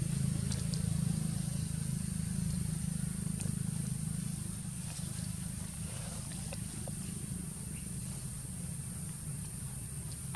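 Outdoor background noise: a steady low hum with a constant high hiss above it, and a few faint clicks.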